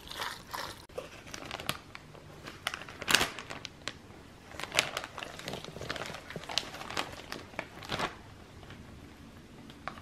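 Plastic zip-top bag crinkling and rustling in irregular crackles as it is handled and filled with a soft filling, the loudest about three seconds in.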